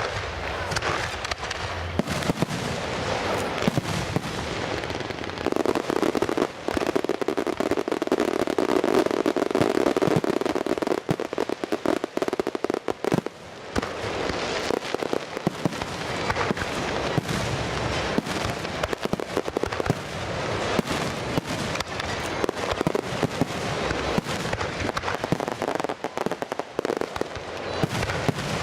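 Fireworks going off in a dense, continuous run of pops and crackles with no real pause. A steadier low rumble runs under them from about five seconds in to about thirteen seconds.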